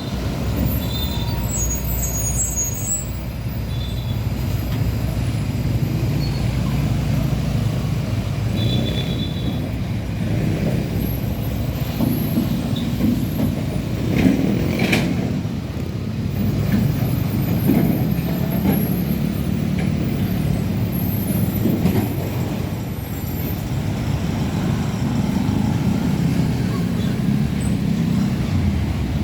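Heavy diesel trucks running on a road with a steady low engine rumble, and a short sharp hiss of air from an air brake about fifteen seconds in.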